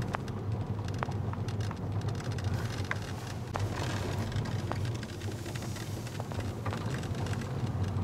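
Car driving on a mountain road, heard from inside the cabin: a steady low engine and road rumble with scattered small clicks and ticks over it.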